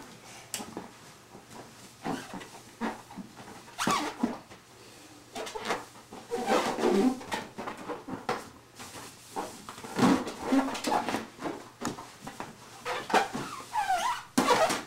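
Inflated latex balloons being rubbed dry with cloth towels: irregular rubbery squeaks and towel rustling, with bursts of squeaking around the middle and again near the end.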